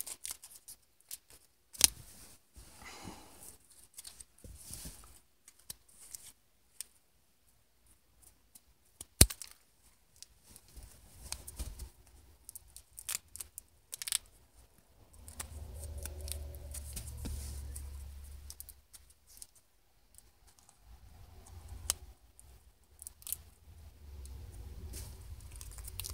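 Scissors snipping through folded paper in short, irregular cuts with pauses, with a couple of sharper clicks of the blades. A low rumble runs under the cutting through the middle and later part.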